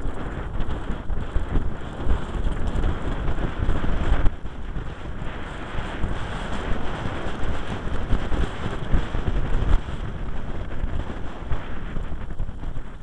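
Wind buffeting the microphone of a camera riding down a dirt downhill mountain-bike trail at speed, over the continuous rumble and rattle of the Giant Glory downhill bike's tyres and frame on rough ground.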